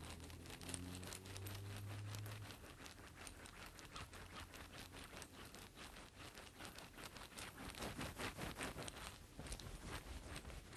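Wooden-ball massage belt drawn back and forth across a person's back: a fast, faint clicking and rattling of the wooden balls and dowels against each other and the clothing, busiest about eight seconds in.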